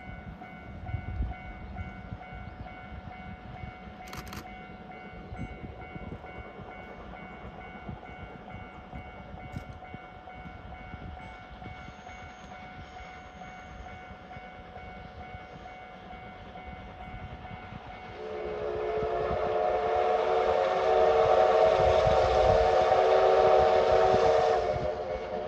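A level-crossing warning bell rings steadily and repeatedly, then the D51 steam locomotive sounds its steam whistle in one long blast of about seven seconds near the end, the loudest sound.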